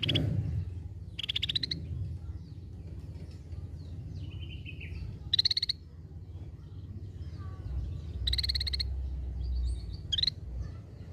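Scaly-breasted bulbul (cucak bersisik) giving short, buzzy, rapidly pulsed calls, about five of them at irregular gaps, over a steady low hum.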